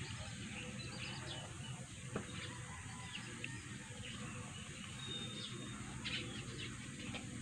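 Birds chirping in short, scattered calls over a steady low background hum, with one short held whistle a little past five seconds. A single sharp click a little after two seconds in.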